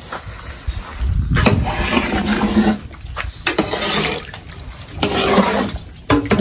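A long-handled spatula stirring a thick brinjal-and-potato curry in a large aluminium pot: wet sloshing and scraping strokes that come in bursts about every second and a half, starting about a second in.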